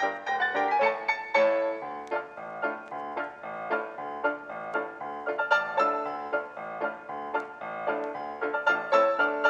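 Background piano music, a quick, busy run of notes.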